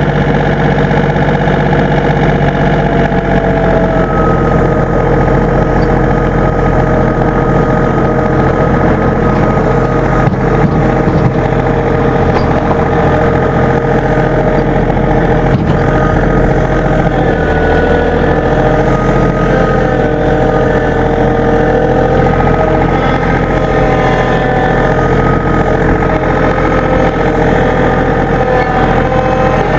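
An engine running steadily at a constant speed, with a low hum and a whine of several steady tones.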